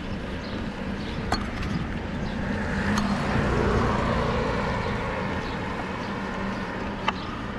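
Road traffic: a motor vehicle's rumble swells and fades about three to four seconds in over a steady low hum, with a few sharp clicks.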